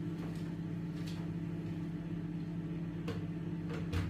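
Steady low hum, with a few light clicks and knocks of things being handled on a kitchen counter.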